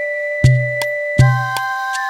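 Electronic background music: sustained synthesizer tones over a steady beat of deep kick-drum hits and sharp clicks.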